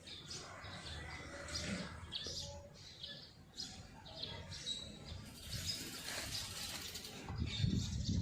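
Small birds chirping, short high calls again and again, with a low rumble that rises near the end.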